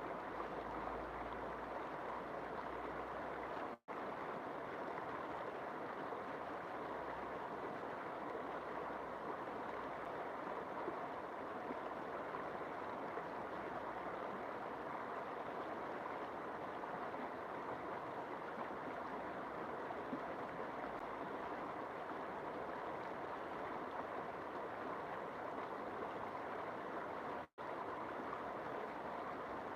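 River water flowing steadily, an even rushing sound that cuts out for an instant twice.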